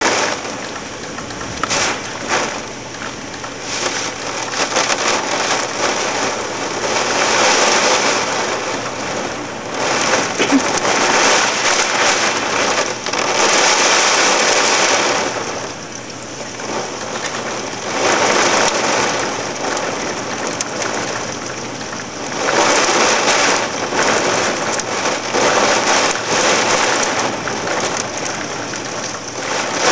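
Heavy hurricane rain band downpour, a dense steady hiss of rain that swells and eases every few seconds.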